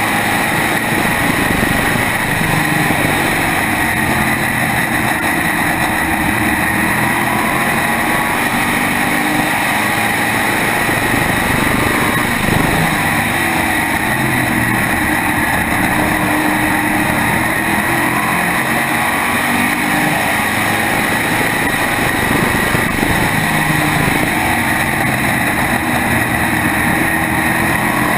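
SK modified race car's carbureted small-block V8 running hard at racing speed, heard up close from on board. Its pitch rises and falls gently as it is driven through the laps.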